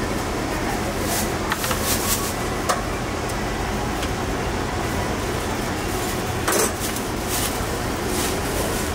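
Steady background hum of a busy food stall with scattered short clinks and clatters of utensils and dishes, a handful over several seconds.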